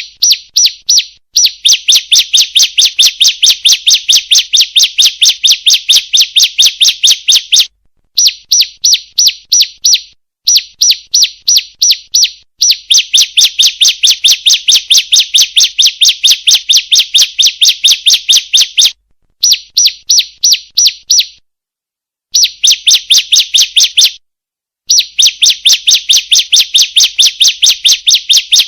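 Female bar-winged prinia (ciblek) calling: a fast, sharp chirp repeated about five times a second in long runs, with brief pauses between runs. The calls are played as a lure to set other ciblek singing.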